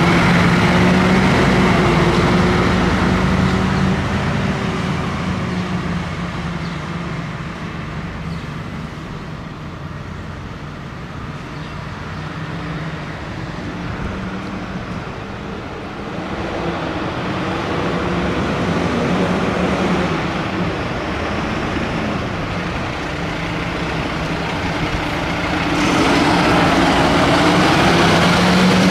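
Diesel engines of fire engines driving out of a station. An MAN HLF rescue fire engine passes close by and fades away over the next several seconds. The engine sound builds again, and near the end a Mercedes-Benz turntable ladder truck's engine revs up, rising in pitch, as it pulls out.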